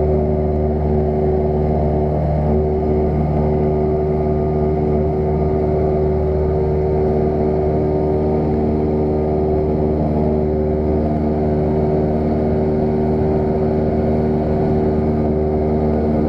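Light aircraft's piston engine and propeller running steadily in level flight, heard from inside the cabin as an even, unbroken drone.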